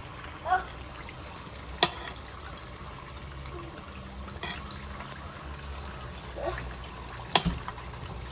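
Egg rolls deep-frying in a pan of hot oil, sizzling steadily. Tongs click sharply against the pan twice, about two seconds in and again near the end.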